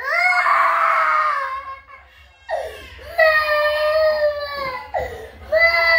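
A child crying in long, high-pitched wails, one after another with short breaks between them.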